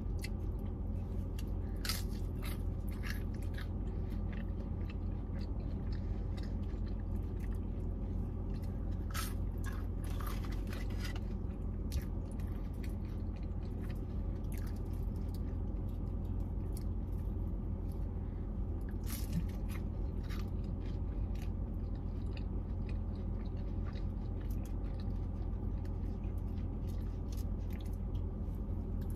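Close-up chewing and biting of McDonald's Chicken McNuggets, with scattered crunches, over a steady low hum.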